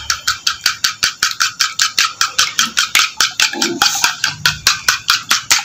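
Raw eggs being beaten by hand in a bowl: a utensil clicks against the bowl in a fast, even rhythm, several strokes a second.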